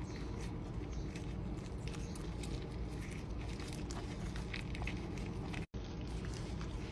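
Kitchen noise: a steady low hum with scattered small clicks and crackles, broken by a split-second gap about five and a half seconds in.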